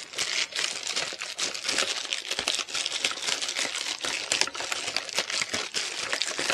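Plastic packaging crinkling as hands handle and unwrap it: a dense, unbroken run of small crackles and clicks.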